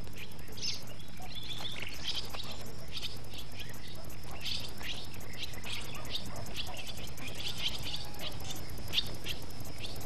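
Swallows twittering in a long run of short, high chirps.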